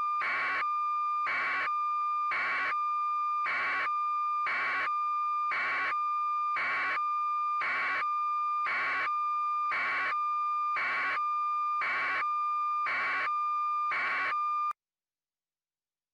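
Electronic beeping: a steady high tone with a beep pulsing over it about once a second, cutting off suddenly near the end into dead silence.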